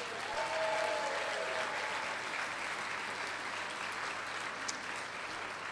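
Dinner audience clapping in a steady round of applause that eases off toward the end.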